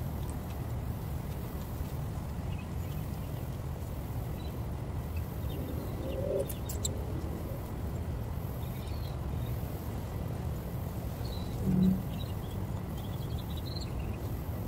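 Outdoor ambience: faint bird chirps over a steady low rumble, with a few light clicks a little past halfway and a short dull knock about twelve seconds in.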